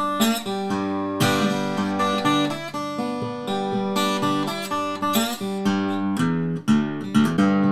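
Collings 002h steel-string acoustic guitar played bottleneck style with a glass slide: fingerpicked country blues with a steady plucked bass under treble notes slid into pitch.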